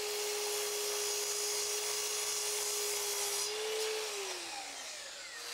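Miter saw cutting through a red oak 1x4, its motor whining steadily. About three and a half seconds in the whine rises briefly, then falls away as the blade winds down.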